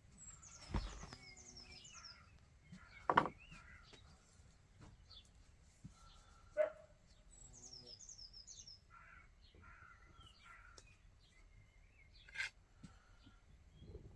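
Songbirds chirping in short, high, falling runs, with four louder sharp knocks scattered through.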